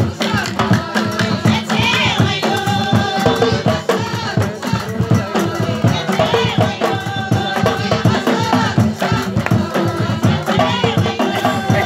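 A line of men singing together in chorus to steady, fast hand clapping and percussion: Amazigh folk music from the Tafraout region.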